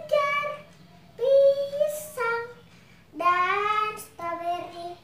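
A young girl singing unaccompanied, in short held phrases with brief pauses between them.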